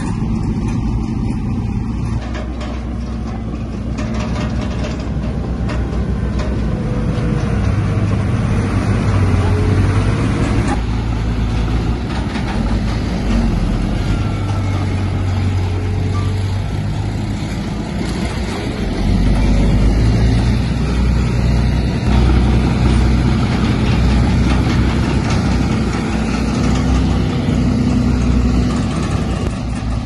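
Diesel engine of heavy earthmoving machinery running steadily with a low drone, its level rising and falling and growing louder about two-thirds of the way through.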